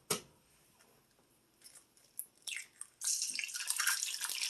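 An egg sizzling in a hot frying pan, a steady crackling hiss that starts suddenly about three seconds in, after a quiet stretch with a few faint clicks.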